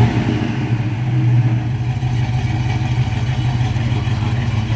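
1974 Pontiac Grand Ville's V8 engine idling steadily.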